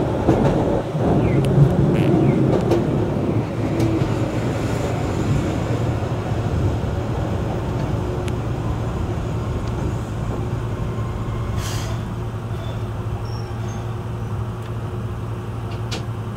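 Keihan Ishiyama Sakamoto Line tram running on the rails, heard from inside the car: a steady rumble of motors and wheels with a low hum, easing a little after the first few seconds.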